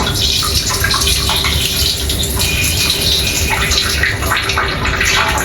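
Water running in a steady rush.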